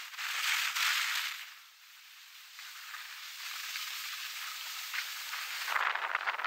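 Skis hissing over snow, with two louder scraping passages as the edges bite, one at the start and one near the end.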